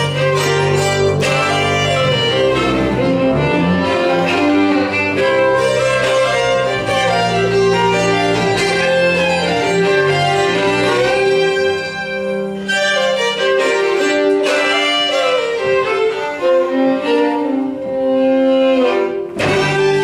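Two fiddles playing an instrumental folk tune together, with a bowed upright bass underneath. The low bass notes fall away about halfway through, leaving the fiddles.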